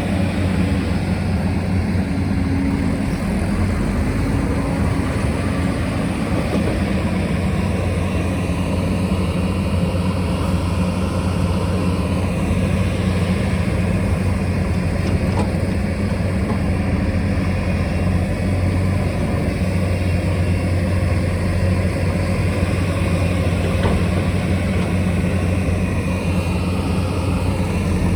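Diesel engine of a working excavator or backhoe loader running steadily with a low, even drone.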